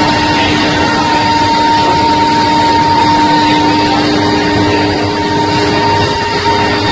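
Induction billet heating furnace running: a steady, high-pitched hum under a loud, even wash of machinery noise.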